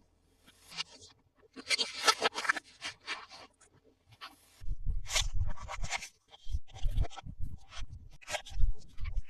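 Toy packaging being handled and opened: irregular scraping and crinkling of plastic and cardboard, with soft bumps in the second half.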